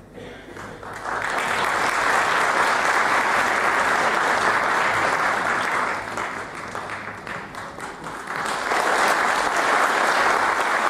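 Audience clapping. The applause starts about a second in, eases off briefly past the middle and swells again near the end.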